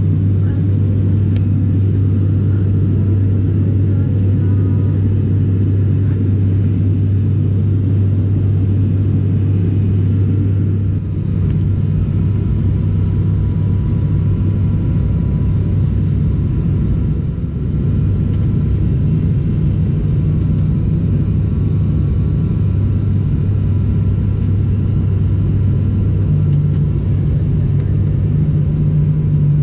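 Steady low drone of an airliner's engines heard inside the passenger cabin, with a deep constant hum and only slight dips.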